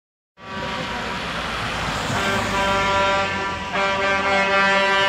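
Vehicle horns sounding long, steady blasts as a military convoy passes. The first horn starts about two seconds in and a second joins near four seconds, over engine noise and tyres hissing on the wet road.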